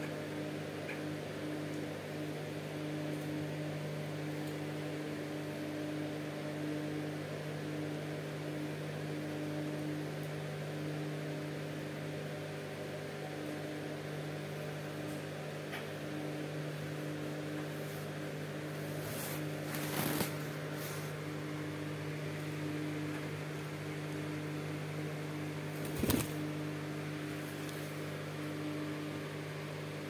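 Steady low electrical hum, like a running appliance or mains hum, with a few short sharp clicks around twenty seconds in and one more about twenty-six seconds in.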